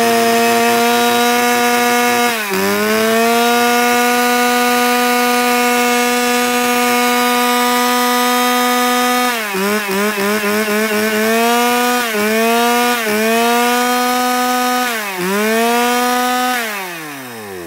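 Shindaiwa 352 36cc two-stroke chainsaw running at full throttle, a loud, steady high-pitched whine. The throttle is let off briefly about two and a half seconds in, then blipped in quick dips from about ten to thirteen seconds in and once more near fifteen seconds. Near the end it is released, and the engine speed falls away toward idle.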